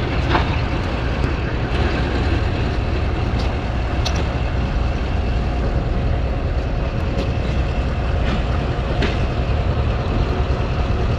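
Diesel locomotive engine running steadily: a continuous heavy low rumble with a few faint steady tones over it and some light clicks.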